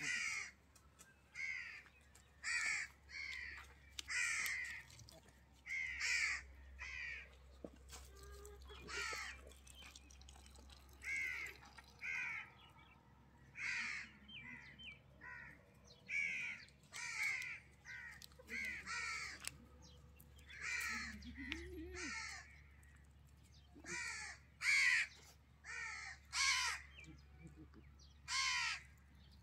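Crows cawing over and over, short harsh calls in loose runs, roughly one to two a second.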